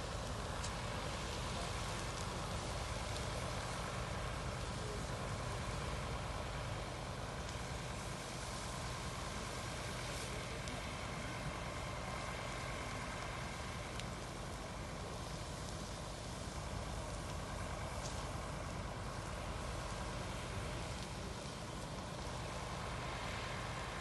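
Heavy fire-engine motors idling steadily, with a few faint sharp clicks scattered through.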